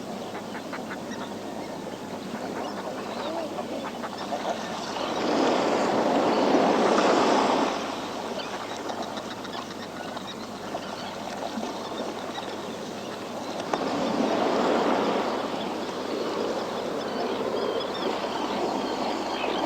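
Waves washing in on a rocky shore, surging loudly twice (about five seconds in and again near fourteen seconds), under a steady wash of surf. Many short bird calls sound throughout.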